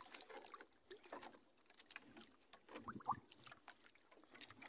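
Near silence, with faint scattered ticks and a slightly louder brief knock about three seconds in.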